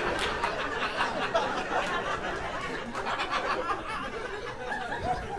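Comedy club audience laughing, the laughter tapering off.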